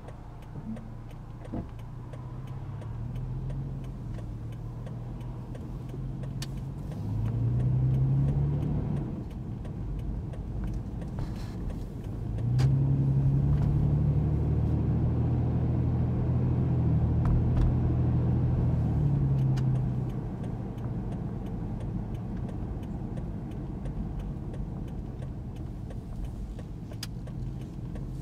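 Car engine and road rumble heard from inside the cabin while driving. The engine note rises and swells about seven seconds in, then again, louder, from about twelve to twenty seconds as the car accelerates.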